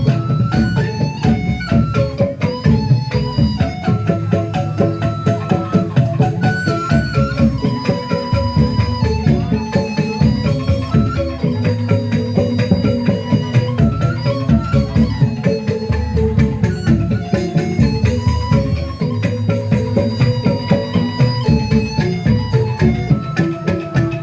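Instrumental traditional music: drums keep a quick, steady rhythm under a held melody, with no singing.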